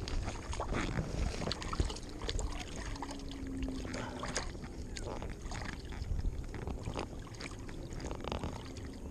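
River water sloshing and trickling at the bank, with many small clicks and knocks. A faint steady hum comes in around the middle and again near the end.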